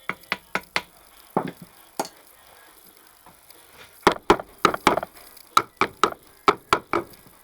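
Sharp knocks on a part of an old electric motor, tapping it loose to come off: a few light taps at first, then from about four seconds in a steady run of louder knocks, about three a second.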